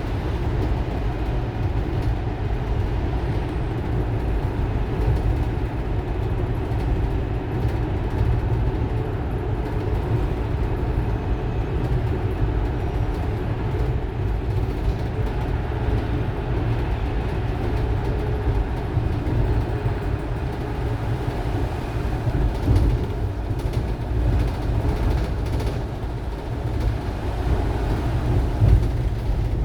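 Inside an RAC RAC-700-ELCB electric bus at speed: a steady low rumble of drivetrain and road noise, with a faint steady whine from the traction motor, which the uploader labels an abnormal motor noise.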